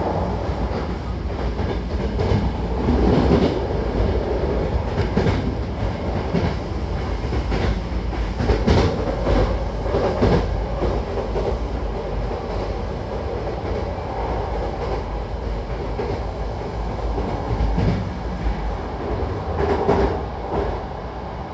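Hankyu commuter train running, heard from inside the car: a steady rumble of the running gear, with the wheels clacking over rail joints in several short clusters. The noise eases a little near the end.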